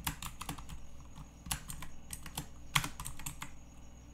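Typing on a computer keyboard: a run of irregular key clicks, a few struck harder than the rest, stopping shortly before the end.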